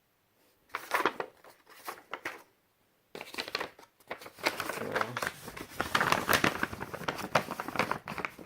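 Record packaging and inserts being handled: a few sharp crackles about a second in, then near-continuous crinkling and rustling from about three seconds in.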